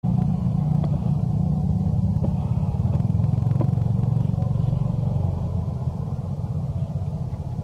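An engine running steadily with a low, even hum, fading slightly near the end.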